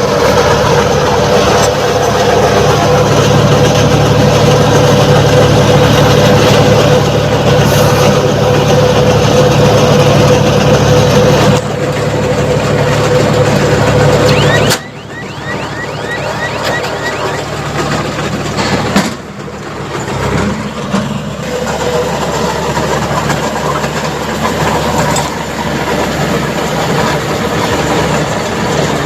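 A tractor running and driving a Redlands SBA 330 round straw baler through paddy straw: a steady engine hum under mechanical clatter. The sound shifts abruptly about halfway in and again a few seconds later.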